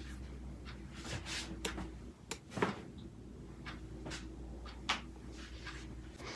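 Handling and rustling of a patient's body and clothing on a chiropractic treatment table during a hands-on pelvic adjustment, with scattered short sharp clicks, the loudest about two and a half seconds in and again near five seconds.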